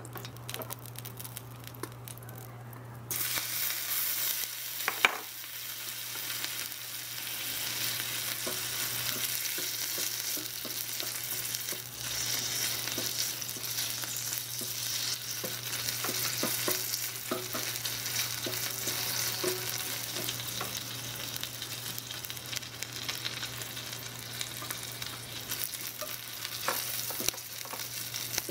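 Shrimp frying in melted butter in a miniature stainless-steel frying pan. The sizzling starts suddenly about three seconds in and holds steady, with small taps and scrapes from a tiny wooden spatula stirring.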